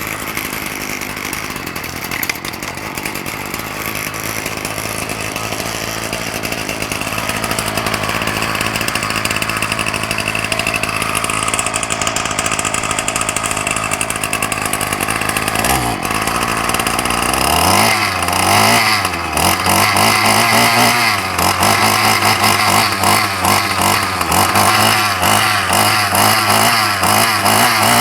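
Ryobi 30cc two-stroke whipper snipper engine running steadily on a freshly cleaned carburettor. About two-thirds of the way in it is revved up, with the pitch rising and falling a couple of times, then held at higher revs, dropping back at the very end.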